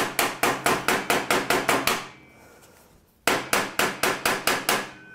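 Hammer tapping rapidly on the metal control console of an Ariens snowblower, about six light strikes a second, flattening the burr around a freshly drilled half-inch switch hole. The tapping stops for about a second midway, then resumes for another second and a half.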